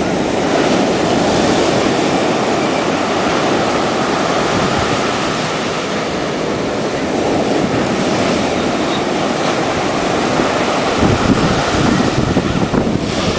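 Steady rushing roar of an airliner cabin during the landing approach, with heavier low rumbling near the end.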